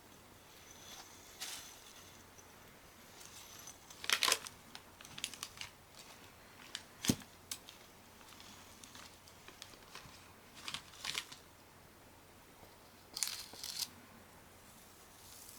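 Hands working material around a muffler baffle: short bursts of crinkling and scraping with one sharp knock partway through. The sounds fit stainless-steel scrubbers and glass wool being stretched and pressed onto the baffle.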